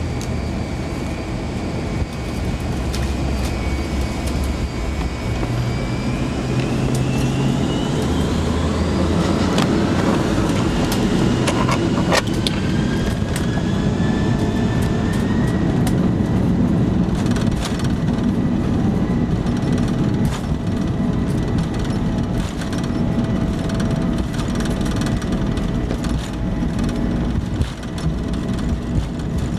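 Jet airliner engines heard from inside the passenger cabin, with a steady low rumble and rush of noise. Between about six and sixteen seconds in, a whine rises in pitch and the sound grows louder as the engines spool up, then it holds steady.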